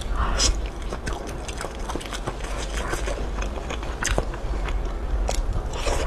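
Biting into and chewing a crunchy cartilage grilled sausage, close to a lapel microphone, with crisp crackly bites about half a second in and again around four and five seconds in, and soft chewing clicks between them.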